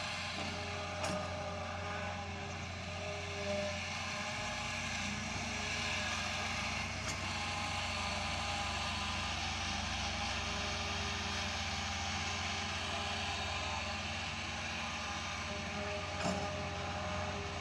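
Fiat-Hitachi EX200 excavator's diesel engine running steadily, with a few light knocks. Its lowest hum gets stronger about four seconds in.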